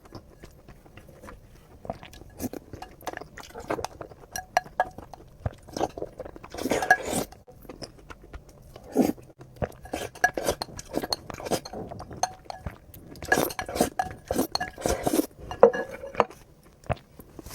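Utensils clinking against dishes, with chewing: many light clicks and taps, in a few denser, louder flurries.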